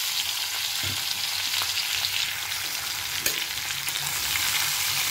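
Hot oil sizzling steadily as cut potato, capsicum, onion and green chillies fry in a soapstone kal chatti, with a few faint clicks.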